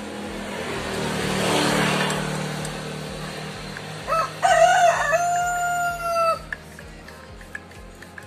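A neighbour's rooster crowing once, about four seconds in: a short first note, then a long held note lasting about two seconds. Before it comes a swelling and fading rush of noise.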